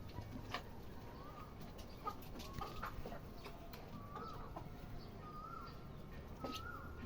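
Local backyard chickens clucking: a series of short, soft calls repeating every half second to a second, with scattered sharp clicks.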